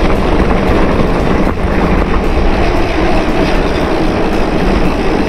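Riding noise from a mountain bike in motion: wind buffeting the camera microphone and the tyres rolling, a loud steady rumble with light rattling clicks.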